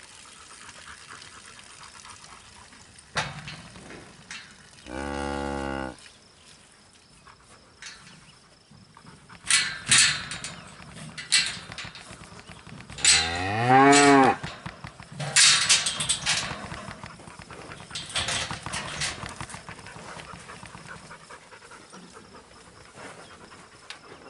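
Cattle mooing: one call about five seconds in and a longer one rising in pitch near the middle, with bursts of clattering and banging in between, as cattle struggle in a livestock chute and head gate.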